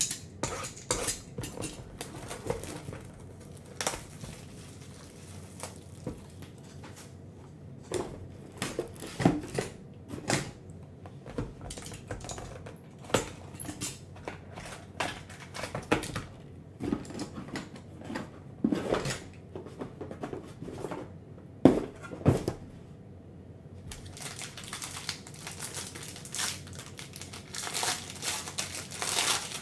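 Cardboard trading-card boxes being handled and set down, with scattered knocks and taps. Near the end a box is slit open with a blade and the pack inside crinkles as it is worked open.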